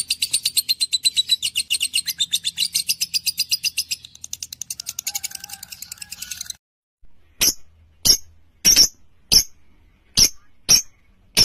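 Small parrots in an aviary (parakeets, lovebirds and budgerigars) calling: a fast, even run of high chirps for about six seconds, then after a short pause a string of loud, sharp single calls a little over half a second apart.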